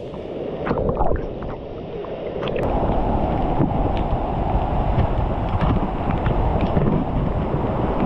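Waterfall pouring into a rock pool, heard close up from water level, growing louder about two and a half seconds in as the camera moves into the falling spray. A few short splashes come in the first couple of seconds.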